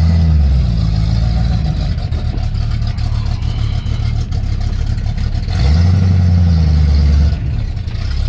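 Ford XC Fairmont's engine running, heard from inside the cabin, rising in pitch and falling back briefly at the start and again for about a second and a half past the middle as it is given throttle. The owner says its carburettor needs sorting out.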